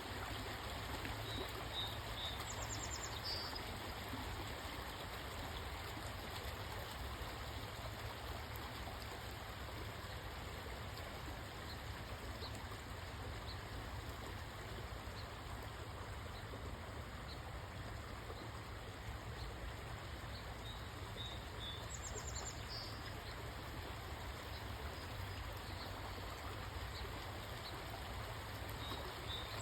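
Forest ambience: a steady, even rushing, like running water, with a small bird's short high song, a few notes then a falling trill, heard three times: near the start, about two-thirds through, and at the very end.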